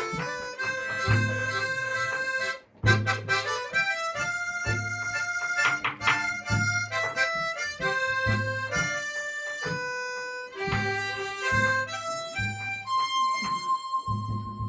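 Harmonica playing a melody of held notes over a steady low beat.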